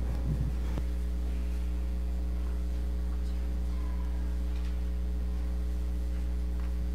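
Steady electrical mains hum in the church's sound system, a low buzz with a few higher overtones, with faint rustling in the first second.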